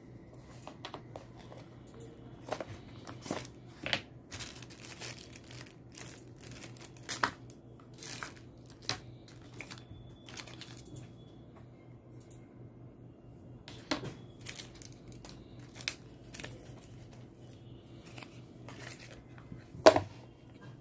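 Unboxing handling: clear plastic packaging bags crinkling and a cardboard box and its inner tray being moved, in scattered short crackles and knocks, the loudest knock near the end. A steady low hum runs underneath.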